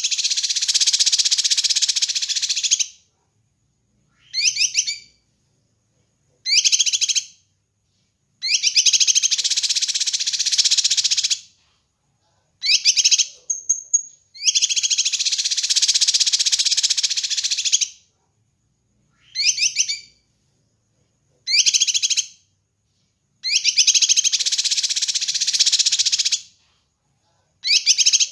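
Kinoi bird singing: long high-pitched bursts of rapid chattering, two to three seconds each, alternating with short phrases of a few quick falling notes, with clean silent gaps of about a second between phrases.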